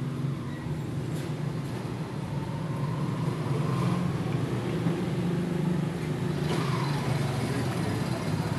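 Steady low engine rumble, a motor running close by, growing somewhat louder about three seconds in.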